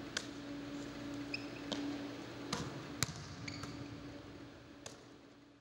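Basketball bouncing and being caught on a hardwood gym floor: about six separate sharp smacks, over a steady low hum, with a couple of short high chirps. It all fades out near the end.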